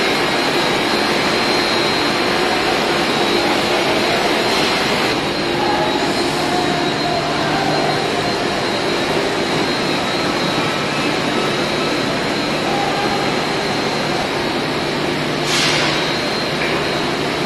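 Steady loud drone of ammonia refrigeration plant machinery running, with a steady high whine above a low hum. A short hiss comes near the end.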